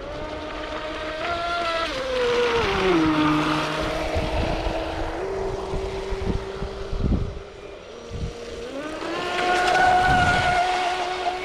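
Traxxas M41 RC speed boat's brushless electric drive whining as it runs on a 4S battery. The pitch drops about two seconds in and holds steady, then rises and is loudest as the boat passes close near the end.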